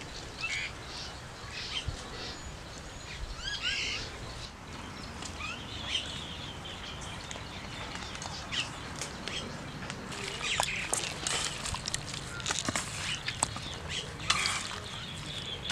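Small birds chirping on and off over a steady outdoor background hiss. In the second half, short sharp clicks and squelches from raw chicken, onion and tomato being mixed by hand in a metal bowl.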